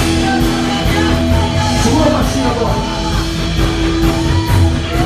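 Worship music playing loudly: a long held keyboard chord with cymbal strokes and guitar, and voices rising and falling over it.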